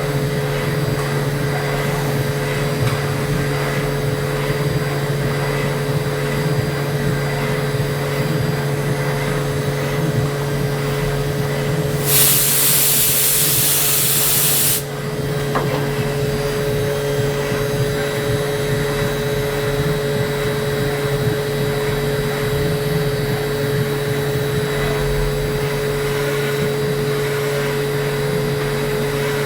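Milling machine running steadily with a constant hum and whine. About twelve seconds in, a loud hiss cuts in for about three seconds, then stops suddenly.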